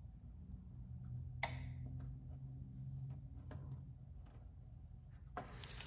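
Faint, scattered light clicks and taps from a small plastic drawer guide being handled and fitted, the sharpest about a second and a half in, over a low steady hum.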